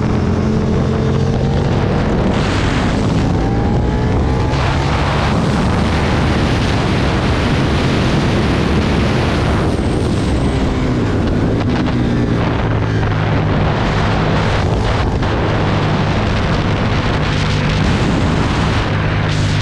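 Aprilia Tuono V2 V-twin motorcycle engine at speed on track, its pitch climbing and dropping again and again as the rider accelerates and backs off, with heavy wind rush over the microphone.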